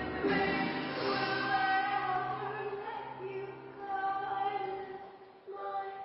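Recorded song played for the dance: a woman singing long held notes over accompaniment. About five seconds in the low backing drops out and the music grows quieter.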